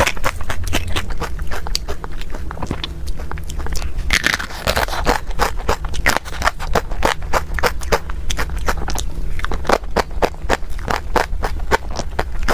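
Close-miked eating: chewing with a rapid run of sharp, crackly mouth clicks and smacks over a steady low hum.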